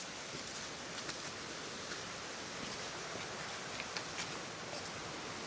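Light rustling and scattered small ticks of footsteps on a forest trail over a steady outdoor hiss.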